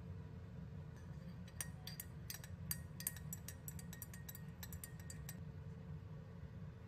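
Metal spoon clinking against a glass mug while stirring coffee: a quick, uneven run of light taps with a faint ring, starting about a second in and stopping about five seconds in, over a steady low hum.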